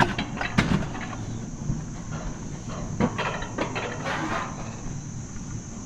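Steady high-pitched insect drone, with irregular clicks and knocks over it.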